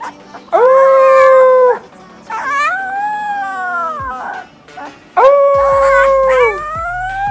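Husky puppy howling, four drawn-out howls in a row: the first and third held on one pitch, the second and fourth rising and then falling.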